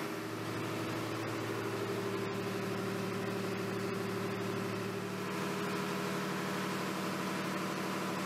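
Marine diesel engines running in a ship's engine room: a steady mechanical drone with several held low tones, whose mix shifts slightly about five seconds in.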